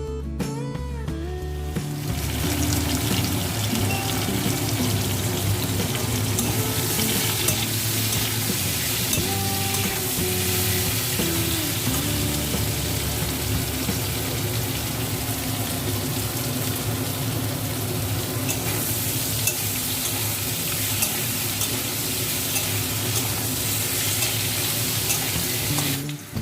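Vegetables frying in hot oil in a pan, a steady loud sizzle, over soft background music. Music alone opens it, and the sizzle starts about two seconds in and breaks off near the end.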